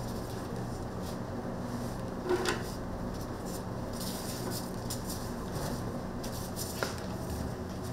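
Steady low background hum of a restaurant kitchen, with two light knocks: one a couple of seconds in and a sharper one near the end.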